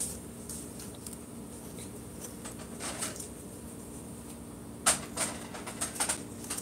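Knife cutting small pieces off a Scotch bonnet pepper held over a bowl of flour: a scatter of short, crisp, scratchy snicks, the loudest about five seconds in.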